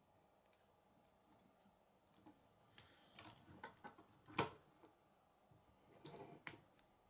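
K'nex plastic rods and connectors clicking and snapping as they are handled and fitted together. A cluster of clicks comes in the middle, with one sharp snap the loudest, and a shorter cluster comes near the end.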